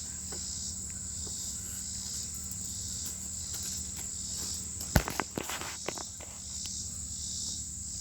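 A steady, high insect chorus, cricket-like, pulsing at an even slow beat over a low hum. About five seconds in there is a sharp click, followed by a quick run of smaller clicks and knocks.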